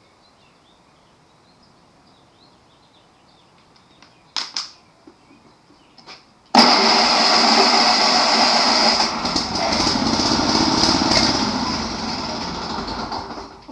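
Sears SS/16 riding mower engine, primed with gasoline poured into the carburetor, starting and running loudly on the key for about seven seconds. It fades and dies near the end. A short loud burst comes about four seconds in, before it catches.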